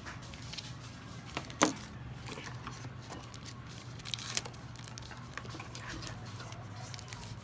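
Hands handling a small phone and unwrapping its battery from a plastic wrapper: crinkling and light clicks, with one sharp plastic click about one and a half seconds in and two more about four seconds in. A steady low hum runs underneath.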